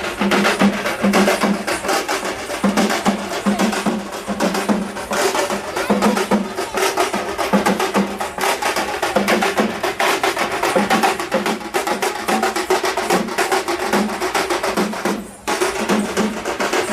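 Percussion music with drums beating in a fast, dense rhythm, briefly dropping off about fifteen seconds in.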